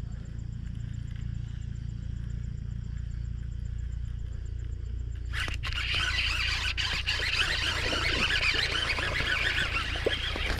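Baitcasting reel cranked fast while fighting a hooked smallmouth bass: a dense rattling whir that starts suddenly about five seconds in. A low steady rumble runs underneath, with a few sharp knocks near the end.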